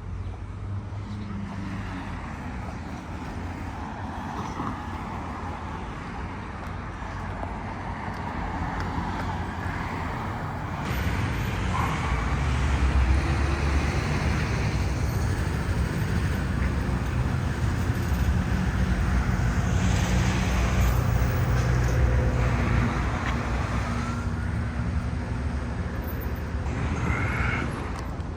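City street traffic: cars driving past, with a heavier, louder engine rumble building about a third of the way in and holding until near the end.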